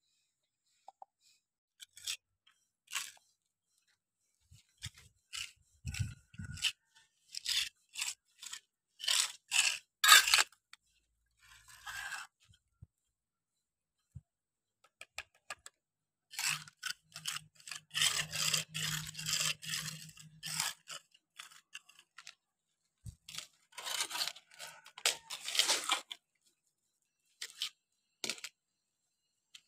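Small steel trowel scraping wet cement grout across a concrete floor crack and against a metal pan, in runs of short scraping strokes separated by pauses.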